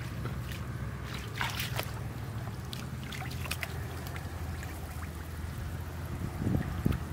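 Hands digging and squelching in wet mud at the water's edge, with scattered small wet crackles and trickling, and a couple of heavier splashes in shallow water near the end, over a steady low hum.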